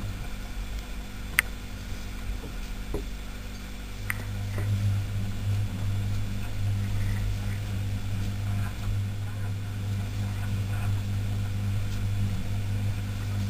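A steady low hum with two faint sharp clicks, the first about a second and a half in and the second a few seconds later.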